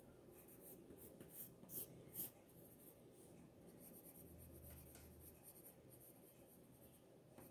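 Pencil scratching on drawing paper in short sketching strokes, faint throughout, with a few sharper strokes around two seconds in.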